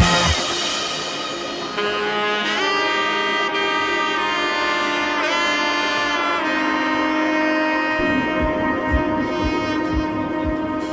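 Background music: held, sustained notes from a wind or brass-like instrument over soft chords, with a light beat coming back in near the end.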